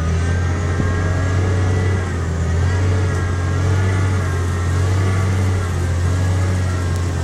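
Amphibious duck-tour vehicle's engine running steadily, a loud low drone.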